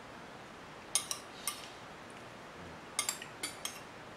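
Metal cutlery clinking against a plate while eating: three short clinks about a second in, then four more around three seconds in, each with a brief bright ring.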